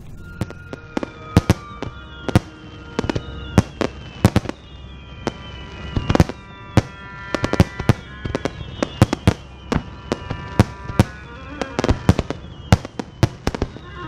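Fireworks display: shells bursting in quick, irregular succession, sharp bangs several a second. Held tones and falling whistles sound under the bangs.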